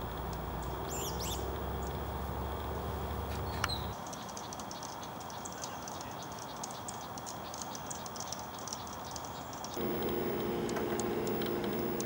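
Dark-eyed junco alarm calls: a few sharp, high chips in the first seconds, then from about four seconds a fast run of high ticking chips, with other bird species alarming alongside.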